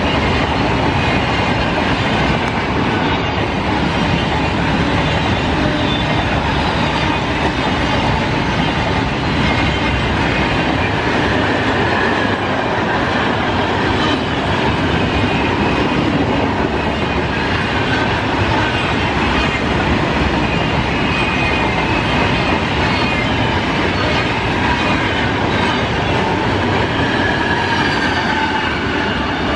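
Freight train's loaded flat wagons rolling past close by: a loud, steady rumble and clatter of steel wheels on the rails, with faint high wheel squeals at times.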